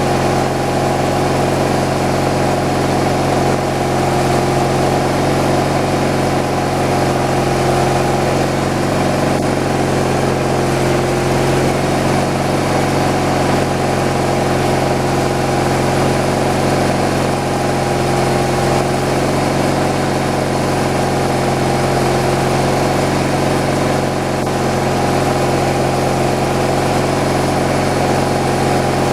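An engine running steadily at one constant speed, with no revving and no cutting strokes.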